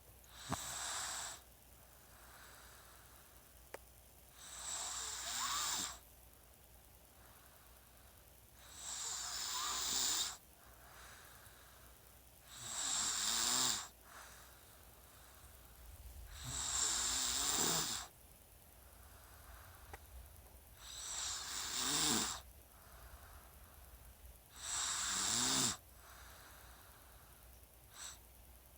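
Snoring, steady and rhythmic: seven breathy snores, each about a second and a half long, about one every four seconds.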